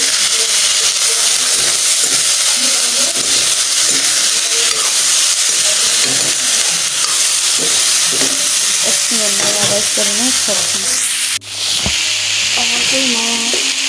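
Food frying in hot oil in a cooking pan, with a steady loud sizzle as it is stirred. The sizzle cuts out for a moment about eleven seconds in, then carries on.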